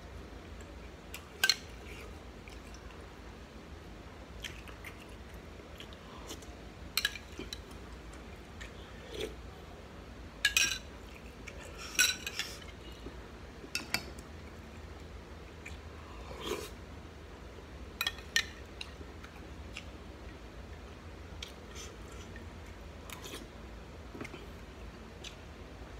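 Eating sounds: scattered sharp clinks and taps of a metal utensil against a white ceramic rice bowl and plate, about a dozen spread irregularly, with quieter mouth sounds of chewing between.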